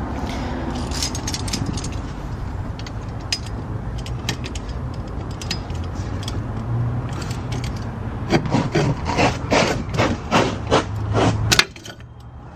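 Metal-on-metal scraping and clicking as locking pliers work the springs and hardware of a Toyota RAV4's drum brake shoe, over a steady low rumble. The scraping grows denser and louder in the last few seconds, then cuts off abruptly.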